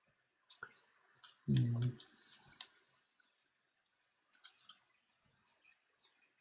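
Light clicks and taps of small repair tools and tablet parts being handled on a workbench, in scattered clusters, with a brief low hum from a man's voice about a second and a half in.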